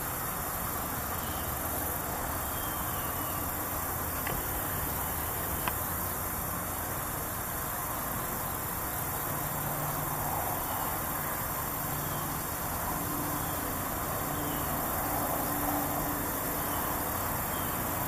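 Steady outdoor background hiss, even and unbroken, with a few faint short high chirps now and then.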